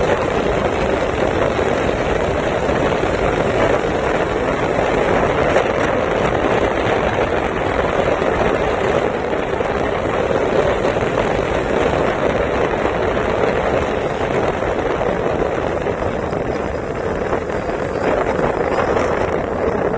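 Steady wind rush buffeting a phone microphone while riding a motorbike, mixed with the bike's running noise.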